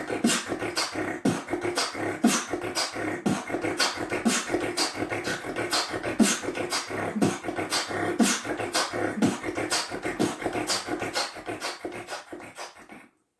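Vocal beatbox beat: a steady groove of mouth-made kick, snare and hi-hat sounds with a low kick about once a second, fading out near the end.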